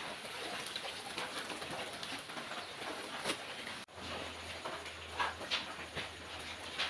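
Steady rain falling on a wet concrete yard, then an abrupt change about four seconds in to a quieter room with a low steady hum and a few sharp clicks.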